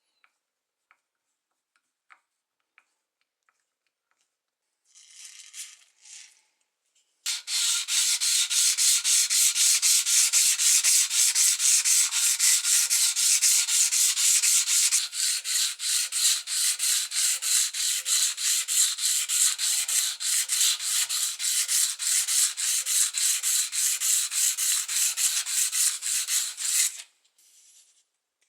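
Hand abrading of an old kitchen knife's blade against an abrasive, with quick, even back-and-forth rubbing strokes, as in sanding rust off the steel. A short scratchy scrape comes first, then the steady rubbing starts about a quarter of the way in and stops abruptly near the end.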